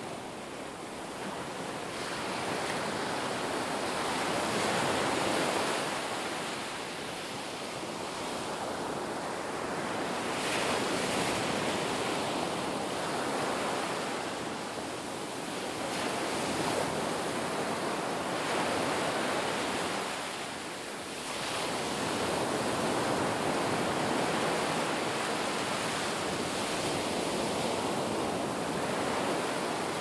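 Ocean waves washing in: a rushing hiss that swells and fades again every five to six seconds.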